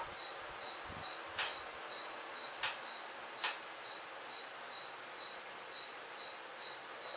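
A cricket chirping steadily: a fast, even, high-pitched pulsing trill with a lower beat about three times a second. Three faint clicks sound in the first few seconds.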